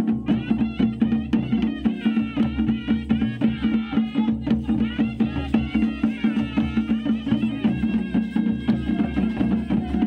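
Traditional Himachali procession music: drums beaten in a steady rhythm of about three strokes a second, under a wavering high melody.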